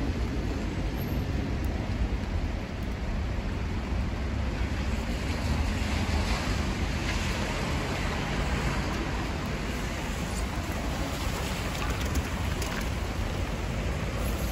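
Steady city traffic noise on rain-wet streets: a continuous hiss of tyres on wet road over a low rumble.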